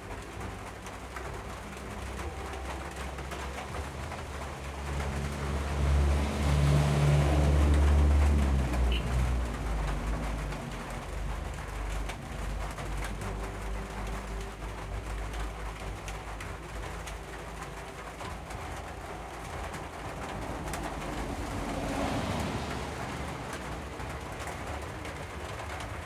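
Doves cooing, low calls repeated throughout, under a low rumble that swells and fades between about five and ten seconds in.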